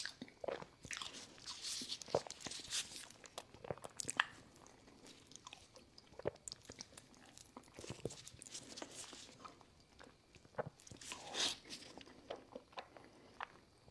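A person eating close to the microphone: irregular bites and chewing with many sharp, crackly clicks.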